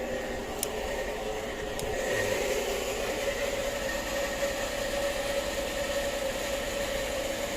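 Steady mechanical hum with a constant tone, and two faint ticks within the first two seconds.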